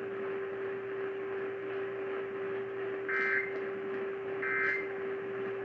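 Emergency Alert System end-of-message data bursts heard over AM radio: short two-tone warbles about 1.4 s apart, two in this stretch. They mark the end of the relayed weather warning. Behind them is a steady low whistle under radio static.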